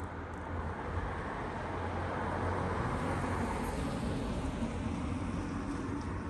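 A vehicle passing by, growing louder to a peak in the middle and then fading, over a steady low hum.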